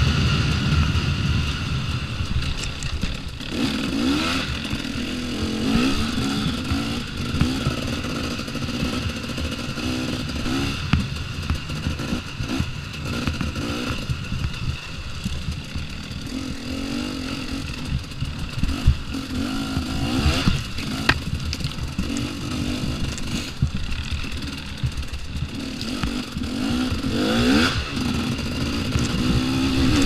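2014 KTM 250 XC-W two-stroke dirt bike engine being ridden hard, revving up and easing off again several times as the rider works the throttle over a rough trail. Short knocks and rattles from the bike over bumps run through it.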